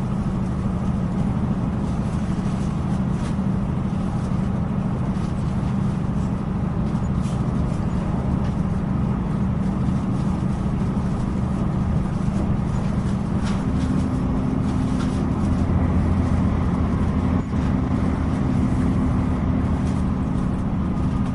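Steady running noise inside a Northern Ireland Railways diesel multiple unit carriage: a low rumble of the underfloor engine and wheels on the rails, with faint ticks. About two-thirds of the way through, a new, higher engine hum comes in and the low rumble grows a little louder.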